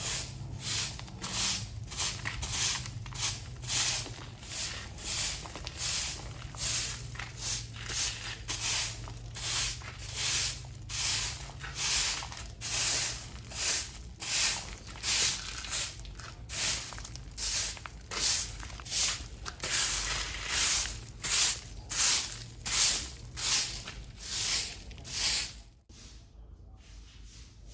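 A broom sweeping the ground in steady, brisk strokes, about one and a half swishes a second. The sweeping stops about 26 seconds in.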